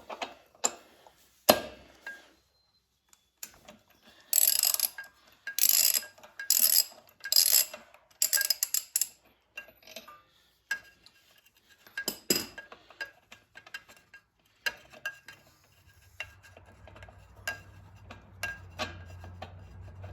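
Socket ratchet clicking and metal tools clinking while the spark plug is worked out of a small four-stroke mower engine, with a run of about five louder clattering strokes a few seconds in.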